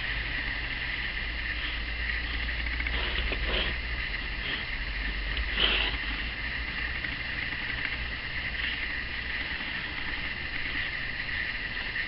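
Pencil scratching across sketchbook paper as lines are drawn in, with a few stronger strokes and one louder stroke a little before the middle. A steady hiss and a low hum sit under it.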